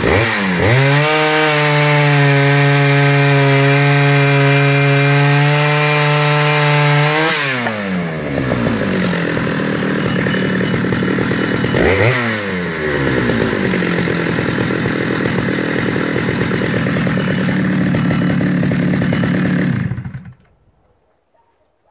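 Stihl 075 AV two-stroke chainsaw held at high revs for about seven seconds, then dropping to idle, revved once briefly, idling again, and switched off abruptly near the end.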